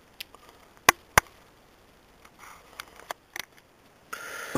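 A few sharp, isolated clicks and taps, the two loudest about a second in, then a short steady hiss near the end.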